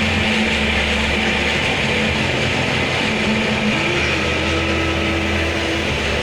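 Oil spinner, a centrifugal de-oiling machine, running steadily: its motor-driven drum spinning with an even rushing noise over a low hum.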